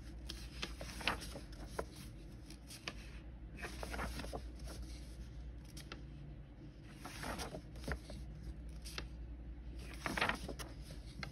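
Paper pages of a coloring book being turned and handled: a few short rustles, the loudest near the end, over a faint steady hum.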